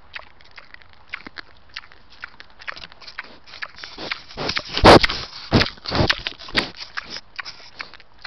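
Wild boar mouthing and biting an Apeman trail camera, its teeth and snout knocking and scraping on the camera housing right at the microphone. A string of sharp clicks builds to a flurry of heavy knocks and scrapes from about four to seven seconds in, then falls back to scattered clicks.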